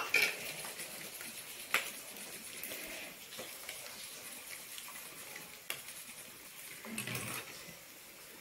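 A spoon clinking and scraping against a steel bowl a few times as something is stirred, the first clink the loudest, over a faint steady hiss.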